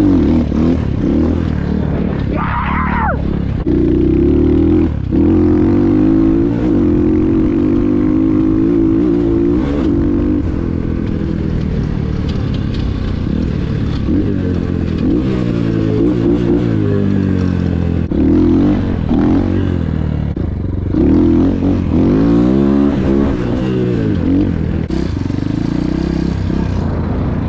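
Cheap Chinese 250cc dirt bike's engine under way, revving up and dropping back several times, with stretches held at steady high revs.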